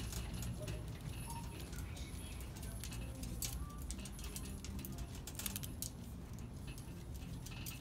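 Wire shopping cart rolling over a hard store floor, a steady low rumble from its wheels with scattered rattles and clicks from the frame. Faint background music plays along with it.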